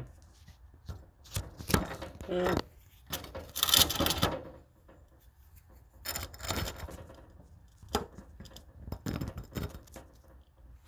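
Handling noise: a series of short rustling, scraping and clicking bursts as things are moved about by hand, loudest about four seconds in.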